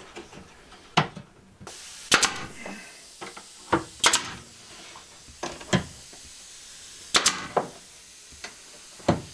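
Brad nailer firing nails into a plywood trim piece on a cabinet face: several sharp shots spaced a second or two apart, some in quick pairs.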